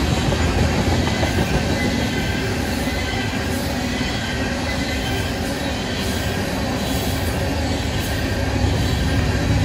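Freight train of tank cars rolling past close by, steel wheels running on the rails in a steady noise that grows a little louder near the end.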